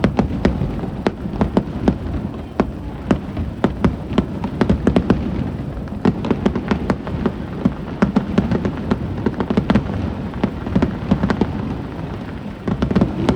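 Aerial fireworks bursting in quick succession: many sharp cracks several times a second over a continuous low rumble of booms.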